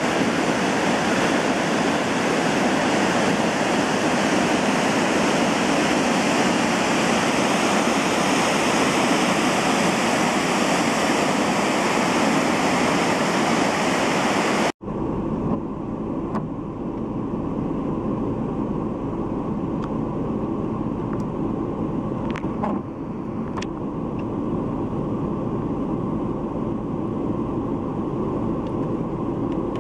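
A creek in flood at about 10,000 cfs, rushing through brown whitewater rapids in a steady, loud wash of water. About halfway through the sound cuts abruptly to a deeper, duller rumble of the same torrent, with a few faint ticks.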